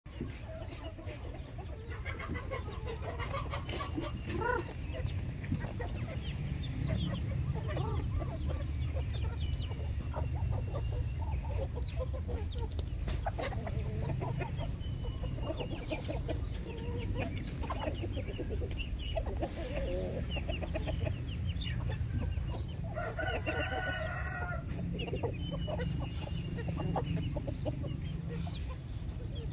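A flock of chickens clucks and squabbles as they crowd in at feeding time. One rooster crows once, about three-quarters of the way through.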